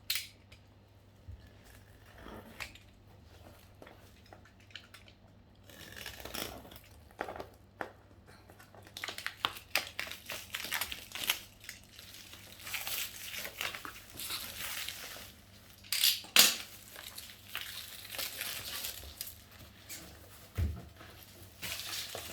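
Packaging being handled and unwrapped around a boxed laptop: crinkling and rustling with many small clicks and knocks. It is quiet at first, gets busy after several seconds, and has one sharp, loud crackle over two thirds of the way through.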